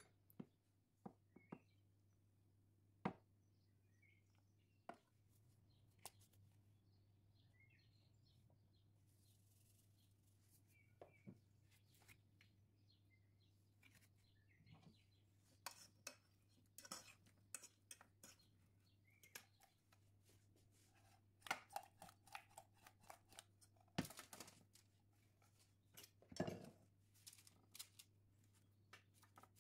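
Scattered light clicks and knocks of a kitchen utensil against a pot and a baking tray as sliced potatoes are handled and spread out, over a faint steady low hum. The clicks are sparse at first and come thicker in the second half.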